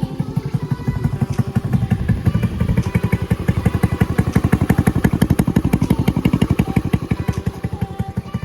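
Honda Navi's single-cylinder four-stroke engine running through an aftermarket Vance & Hines upsweep exhaust, a rapid, even train of exhaust beats that swells a little in the middle.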